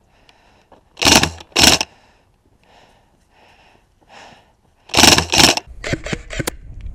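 Airsoft electric gun firing in short pairs: two loud shots about a second in and two more about five seconds in, followed by a quick run of sharper clicks.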